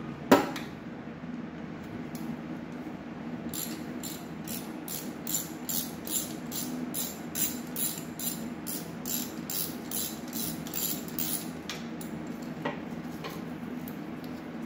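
Socket ratchet clicking in quick, even strokes, about three a second, as a manifold nut on a Triumph TR6 straight-six is backed off, over a steady low hum. A single sharp knock comes just after the start.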